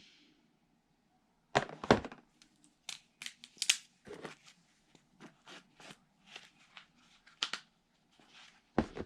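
Leatherman multitools being handled: an irregular string of sharp metal clicks and knocks as the tools are turned over and unfolded.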